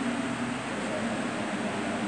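A man's voice chanting dhikr through a microphone and hall loudspeakers, a held note fading near the start, over a steady hiss with echo.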